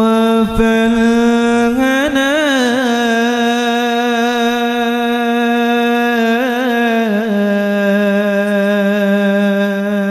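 A single voice chanting one long held note, with wavering melismatic turns about two seconds in and again around six to seven seconds, after which the pitch steps slightly lower.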